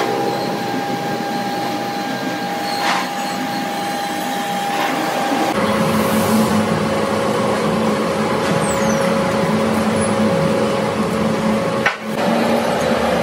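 Boring machine turning a boring bar with cutting tools inside a bore in a thick steel plate, running with a steady machine hum; the hum steps down to a lower pitch about five and a half seconds in.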